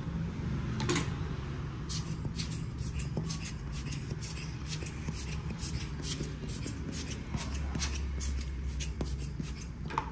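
Hands and small repair tools handling an OPPO A76 smartphone during a screen replacement: a run of quick clicks and scraping.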